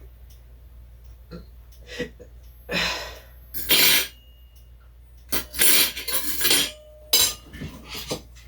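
Kitchen handling noises: a few clinks of dishes or utensils and several short rustling or scraping sounds as ingredients are handled.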